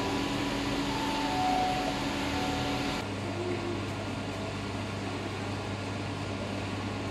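Steady mechanical hum and hiss of aquarium-hall equipment: ventilation and tank pumps. The sound changes abruptly about three seconds in and settles into a steady low drone.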